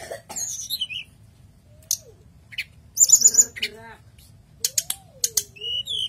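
A caged tledekan gunung, a blue flycatcher, singing: a broken string of sharp high chirps and quick short trills with pauses between phrases.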